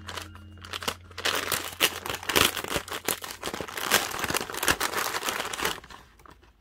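Grey plastic poly mailer bag being torn open and crinkled by hand: a dense run of crackly plastic rustling that dies away shortly before the end.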